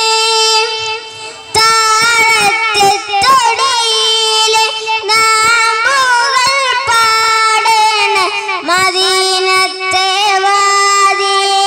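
A boy singing a Malayalam Islamic devotional song (madh) in praise of Medina into a microphone, holding long notes with wavering, ornamented turns and no words clearly sung, after a short pause about a second in.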